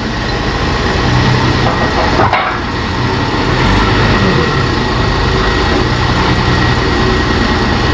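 Heavy diesel machinery running steadily on a construction site, with a brief knock about two seconds in.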